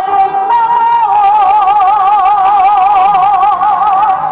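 A woman singing live into a microphone over a backing track. About a second in she moves up to a long held note with a steady, even vibrato that lasts almost to the end.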